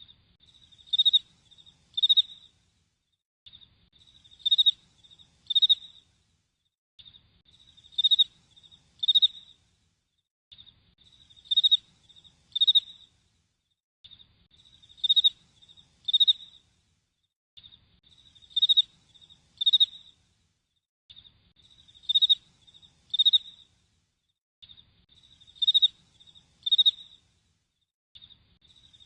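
Cricket chirping in a pattern that repeats about every three and a half seconds: a few faint high chirps, then two loud chirps about a second apart.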